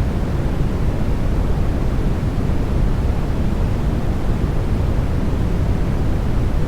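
Steady sleep white-noise track: an even, unbroken rushing noise with no tones or rhythm, weighted toward the deep end.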